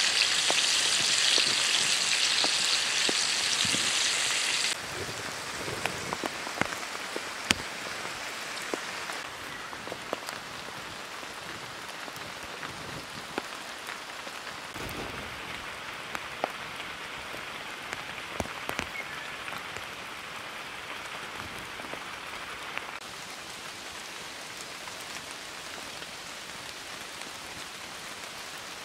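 Meat patties sizzling in hot oil in a frying pan. The sizzle is loud for about the first five seconds, then drops suddenly to a quieter hiss with scattered sharp pops and crackles.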